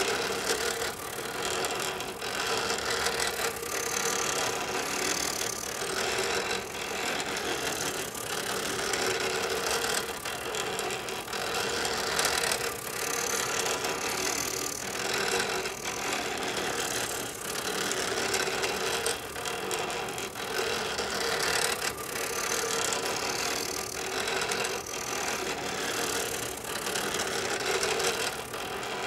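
HP 7470A pen plotter drawing without pause: its stepper motors buzz and whine as the pen carriage sweeps side to side and the grit wheels shuttle the paper back and forth, with short ticks scattered through it.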